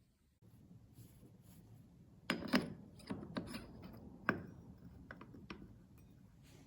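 Metal workshop clinks and knocks from tools and parts being handled, with a few sharp strikes about two to four seconds in and lighter clicks after.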